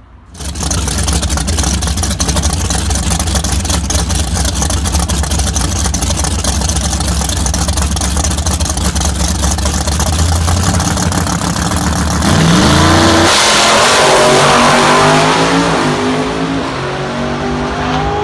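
Drag-racing car's engine running loudly at the starting line, then about twelve seconds in it revs up and launches with a loud burst, its pitch climbing in steps as it accelerates away down the track.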